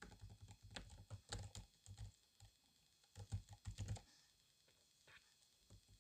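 Quiet, irregular tapping and clicking with dull thumps, in two flurries: one through the first two seconds and another from about three to four seconds in, then a single faint tap.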